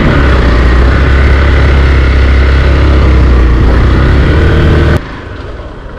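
Hero XPulse 200 motorcycle's single-cylinder engine running steadily and loudly while riding, dropping abruptly to a much quieter level about five seconds in.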